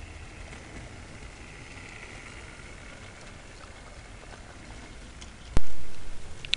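Model railway locomotive running past with a faint motor whine and the rattle of wheels on the track as it hauls goods wagons. About five and a half seconds in comes a single sharp, loud click, then a smaller one at the end.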